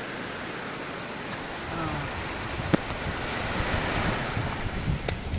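Shallow surf washing over a sandy beach, swelling and easing, with wind rumbling on the microphone. A single sharp click about halfway through.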